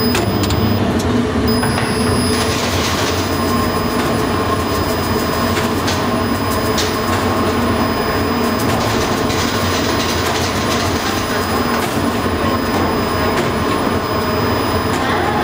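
Bakery production machinery running steadily: a continuous mechanical rattle and hum with a faint steady whine and a few sharp clicks.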